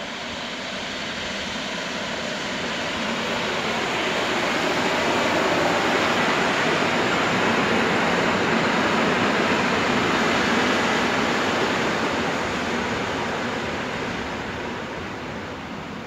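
Koleje Śląskie EN57KM electric multiple unit passing through the station: rolling wheel and running noise that builds, peaks in the middle as the train goes by, then fades away.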